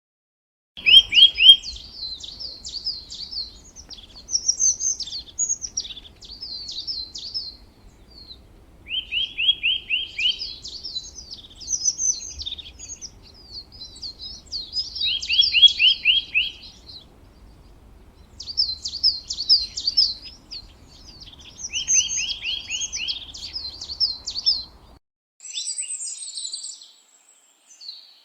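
A songbird singing the same song phrase again and again, about four times, each opening with a fast run of notes and going on into higher twittering. After a short break near the end comes a different, higher-pitched chirping.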